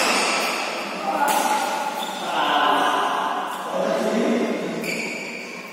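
Badminton racket hitting a shuttlecock, with a sharp smack about a second in and another near the end. Players' voices call out between the hits, echoing in the hall.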